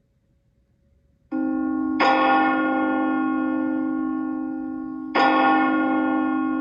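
A bell ringing: the ring cuts in abruptly about a second in, then the bell is struck twice, about three seconds apart, each strike ringing on with a long slow fade.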